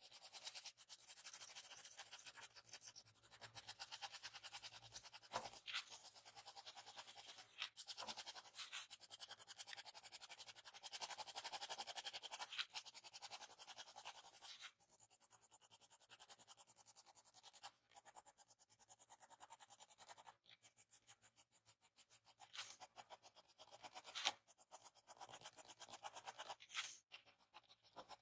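Pencil scratching quickly over paper in short, rapid back-and-forth strokes as fine hair lines are hatched in. The strokes are denser and louder in the first half and get softer about halfway through.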